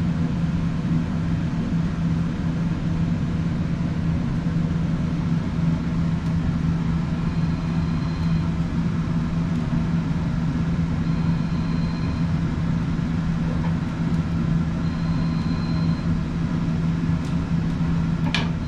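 Electric fan running with a steady low hum. Near the end a short metallic click comes from the wood stove's door handle.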